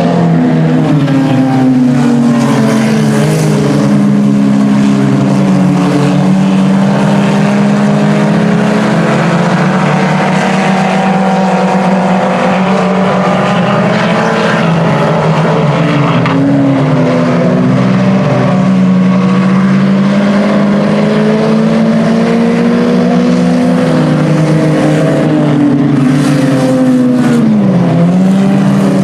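Several IMCA Sport Compact race cars' four-cylinder engines running hard on the track together. Their overlapping engine notes rise and fall as the drivers lift and get back on the throttle, with a sharp dip and recovery near the end.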